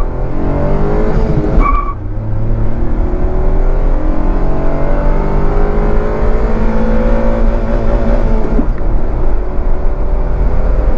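Suzuki Alto 800's small three-cylinder petrol engine accelerating hard, heard from inside the cabin. The pitch climbs, drops briefly about two seconds in at an upshift, then rises steadily again through the next gear.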